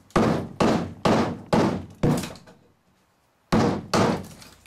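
Rubber mallet striking the end of a homemade prying tool driven under the end cap at the stern of a wooden canoe, working the cap loose. About seven blows, roughly two a second, with a short pause after the fifth.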